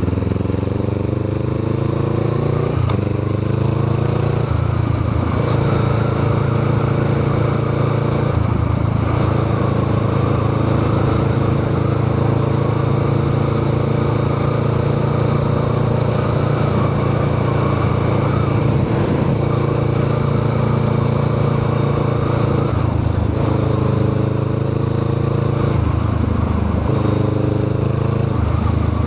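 Honda Rebel 500's parallel-twin engine through a Musarri aftermarket muffler, under way: pitch climbing through several upshifts, with a short break at each shift, in the first eight seconds or so, then a long steady cruise, and further shifts and acceleration in the last several seconds.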